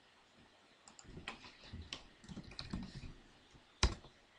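Computer keyboard keys being typed in a short, uneven run, followed near the end by a single louder, sharp click.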